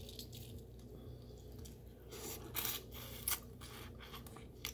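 Snow crab leg shells being cracked and pulled apart by hand, giving a few short crackles and snaps.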